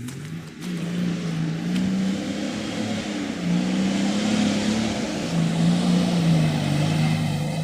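Off-road 4x4 engine running under steady load, its pitch stepping up and down a little as the revs change.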